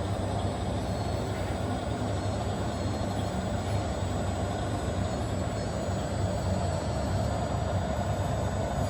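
Radio-controlled model trucks running, a steady mechanical drone with a low hum that holds at an even level.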